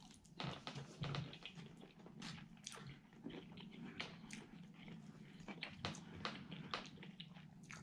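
A person chewing a mouthful of microwaved beef and broccoli close to the microphone: soft, irregular wet clicks and smacks of the mouth.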